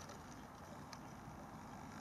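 Faint, steady outdoor background noise, with a soft tick about a second in.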